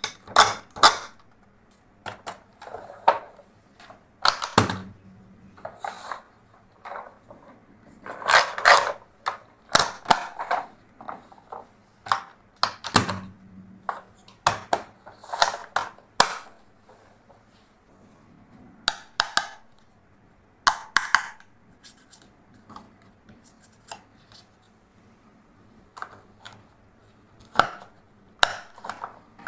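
Toys being handled: irregular clicks, taps and clatters of hard pieces knocking together, with a couple of duller thumps and short pauses between.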